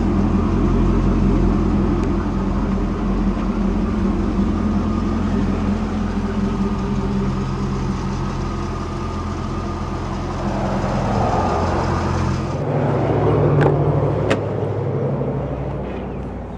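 A car engine idling steadily. About three quarters of the way through, the sound changes abruptly to a different, lower idle, with two sharp clicks soon after.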